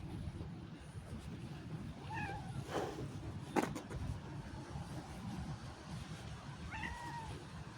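Domestic cat meowing twice, a short call about two seconds in and another near the end. A short sharp knock comes between them and is the loudest sound, over a steady low rumble.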